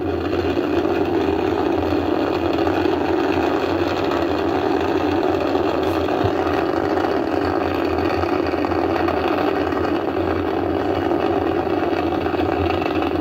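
Ariane 5 ECA rocket's two solid boosters and Vulcain 2 main engine roaring in the seconds after liftoff, a loud, steady rumble with no breaks.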